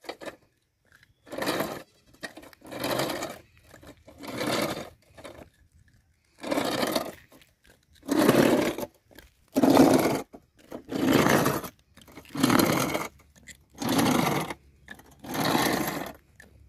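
Small caster wheels of a hand-propelled wheeled board rolling and rattling over rough asphalt, in about ten surges roughly a second and a half apart, one with each push off the road.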